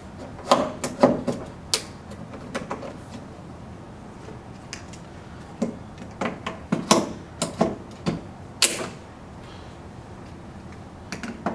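Metal leg tubes of a bath bench being pushed into the leg sockets of its plastic seat, with a scatter of sharp clicks and knocks as the spring-loaded brass push buttons snap into their locking holes.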